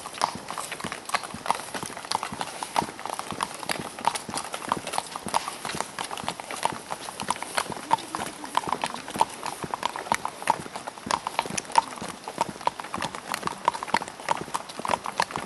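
Hooves of a group of walking horses on an asphalt road: a steady, overlapping clip-clop of many hoofbeats, several a second.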